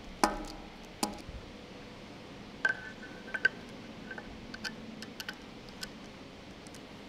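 Metal clinks as a steel tapered roller bearing is handled and seated onto a steel shaft in a machined housing. Two sharp ringing clinks come early, then a string of lighter clinks, several with a short high ring.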